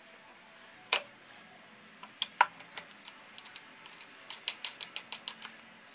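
Sharp metal-on-metal clicks from fitting the motorcycle's front axle through the fork slider and wheel hub: one click about a second in, two louder ones a little past two seconds, then a quick run of about a dozen light ticks near the end.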